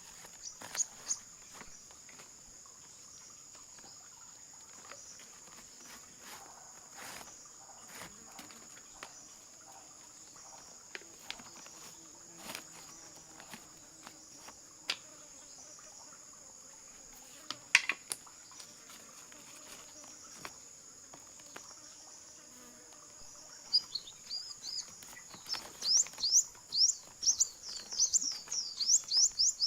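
Insects chirring in a steady high-pitched chorus, with scattered clicks and taps. Near the end a bird breaks in with a rapid series of loud chirps.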